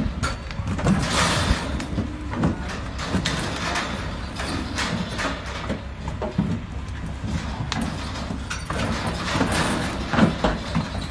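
Longhorn cattle hooves clomping and knocking on a livestock trailer's floor and cleated ramp as the animals unload, with the trailer rattling under them. The knocks come at irregular intervals throughout.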